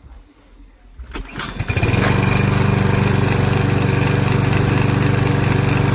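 Mountfield SP41 mower's 123cc ST120 petrol engine being pull-started with no priming, relying on its autochoke. The starter cord is pulled about a second in, the engine catches almost at once, and it then runs steadily.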